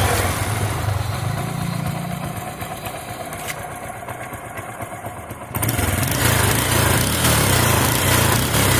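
Bajaj Pulsar LS 135 single-cylinder engine running at idle with a fluttering exhaust-leak sound. The leak comes from exhaust header bolts at the engine that have worked loose. The sound gets suddenly louder about five and a half seconds in.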